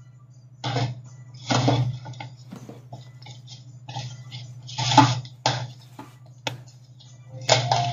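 Small plastic toy pieces being picked up and handled, giving about half a dozen short clattering and rustling knocks, over a steady low hum.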